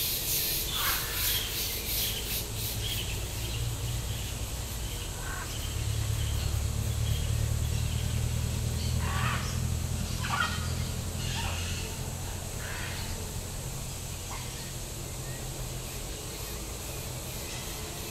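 Short bird calls at scattered intervals over a steady low rumble. The rumble swells for a few seconds midway.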